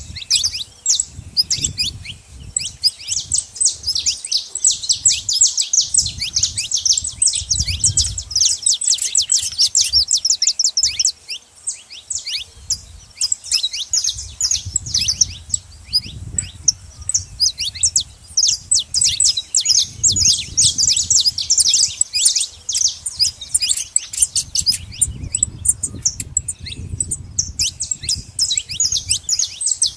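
Saffron finches chirping rapidly and without pause, many short high calls overlapping. A low rumble comes and goes underneath several times.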